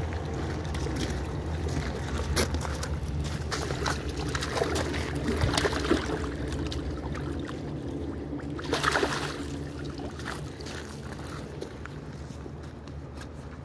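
Pond water splashing and sloshing in bursts as a large fish is tipped out of a landing net into the pond, loudest about nine seconds in. A steady low hum runs underneath.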